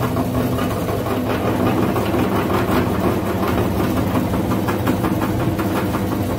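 Electric meat grinder motor running steadily, with a continuous crunching crackle as crumbly material is forced through the auger and out of the cutting plate.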